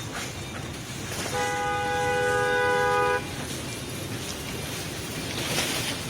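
Train horn sounding one steady chord for about two seconds, over steady background noise.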